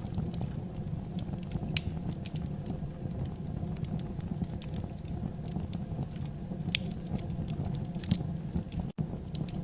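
Wood fire burning in a fireplace: a steady low rumble with scattered sharp crackles and pops. The sound cuts out for an instant near the end.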